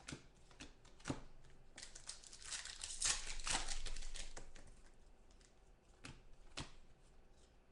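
A trading-card pack's wrapper crinkling and tearing as it is ripped open, loudest and busiest in the middle, with a few sharp clicks and snaps of the cards being handled.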